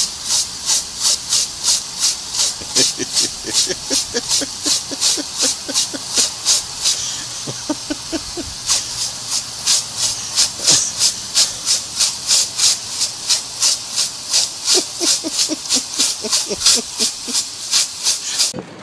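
Lawn sprinkler's water jet hissing in a fast regular pulse, about three spurts a second, as a dog bites at the spray. Short clusters of low, quick pitched sounds from the dog come and go a few times.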